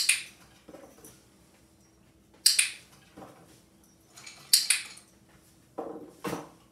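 Dry dog treats clattering in a ceramic bowl as a hand grabs from it, three short rattles about two seconds apart, the third a quick double. Two duller knocks follow near the end.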